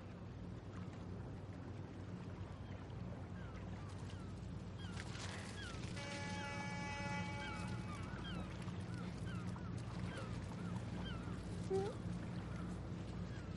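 Many short bird calls repeating over a steady low hum. About six seconds in, a held tone with several pitches sounds for about two seconds, and near the end one louder rising call stands out.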